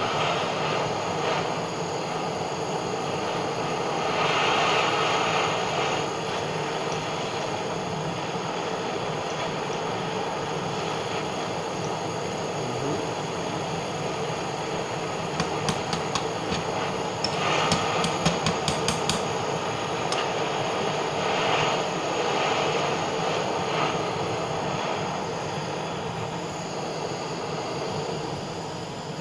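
Butane blowtorch flame burning steadily with a rushing hiss as it heats borax flux in a crucible. A little past halfway comes a quick run of sharp clicks.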